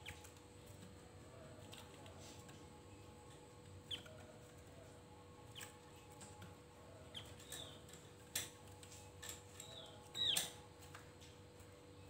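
Javan grey-throated white-eye (opior Jawa) giving scattered short, sharp call notes that fall in pitch, mixed with a few sharp clicks; the loudest call and click come about two-thirds of the way through.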